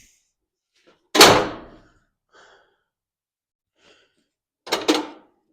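A swing-arm grinder stand carrying a bench belt grinder clunks as it is swung and seats into position: one heavy knock about a second in that rings briefly, then a quick double knock near the end.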